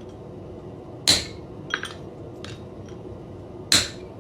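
Hammer striking a square punch into the forged steel collar twice, about two and a half seconds apart, each blow a sharp ringing clang, with a few light metallic clinks in between as the punch is repositioned.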